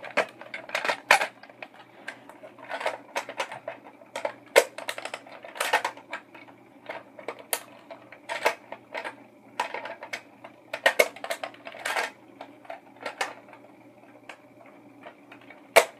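Plastic toy street sweeper being handled: irregular clicks and clatter of its plastic parts, with a sharp louder click near the end.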